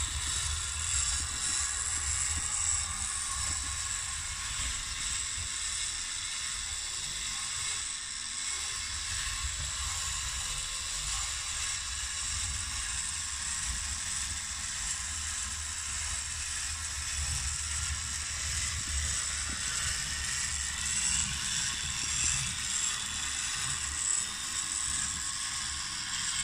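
Steady whir of the small battery motor and gears of a 1970s ME 752 tin 'Mystery Action' bump-and-go toy car as it drives itself, with a low rumble of its wheels on a wooden floor.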